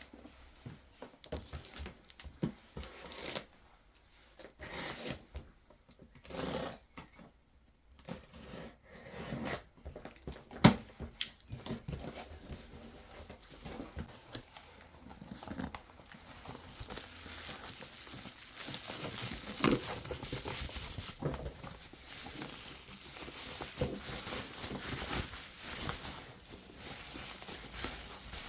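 Crinkling and tearing of handled packaging, with scattered small clicks and knocks, growing into a denser, steadier rustle in the second half.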